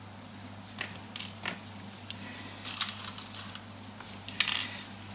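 Handling sounds from rewiring a 16-amp power plug: a few sharp clicks and short scraping rasps of tools, wire and plastic plug parts, the loudest about four and a half seconds in, over a low steady hum.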